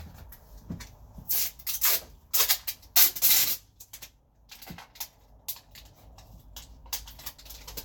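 Adhesive tape being pulled off the roll in four short, hissing rips during the first half, followed by a few light clicks and handling sounds.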